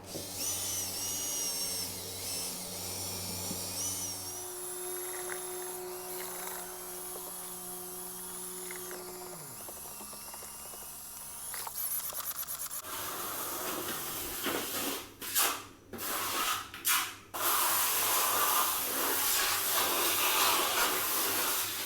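A power tool's motor runs with a steady hum and winds down about nine seconds in. From about thirteen seconds a loud hissing, grinding noise follows, with a few brief stops.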